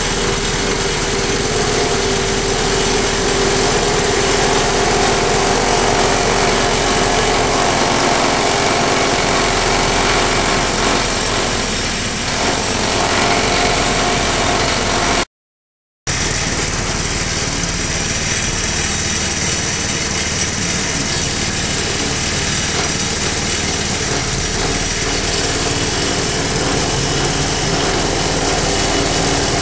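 Grass chopper machine running steadily while stalks of grass are fed in and chopped, with a brief silent break about halfway through.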